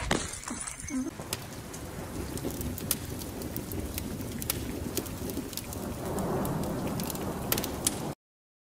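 Intro sound effect of a low rumble under scattered crackles and sharp ticks, like rain with thunder. It swells a little about six seconds in and cuts off suddenly near the end.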